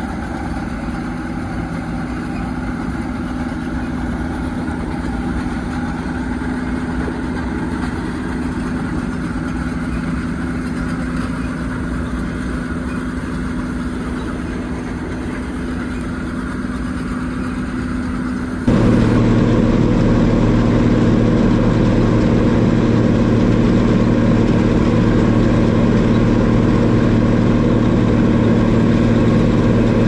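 John Deere combine harvesting wheat: its engine and threshing machinery running steadily with a low hum. About two-thirds of the way through, the sound jumps abruptly to a louder, closer recording of the combine running.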